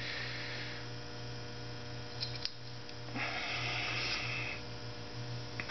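Steady electrical mains hum, with two faint clicks of small metal carburettor parts being handled a little over two seconds in and a brief hiss about three seconds in.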